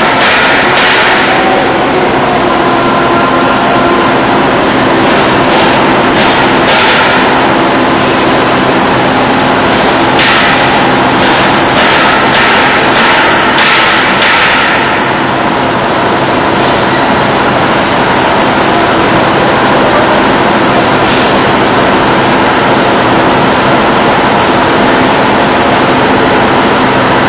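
Loud, steady drone of heavy machinery with a low hum running under it, broken by short bouts of clatter a couple of times, the longest from about ten to fifteen seconds in.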